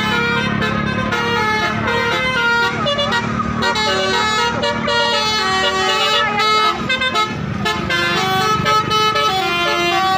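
A bus's Basuri telolet musical air horn playing a melody, its tones holding briefly and then jumping to new notes in quick succession.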